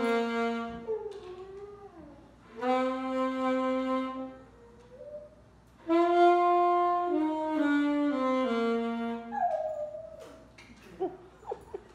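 Saxophone playing three phrases of held notes that step up and down, with a Siberian husky howling along in the gaps, its voice sliding in pitch. After the last phrase the husky gives one falling howl on its own, followed by a few short sharp sounds near the end.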